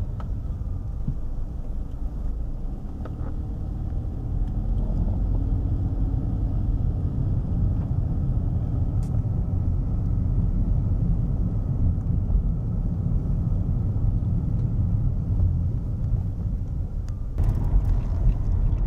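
Car engine and road noise heard from inside the moving car's cabin: a steady low rumble.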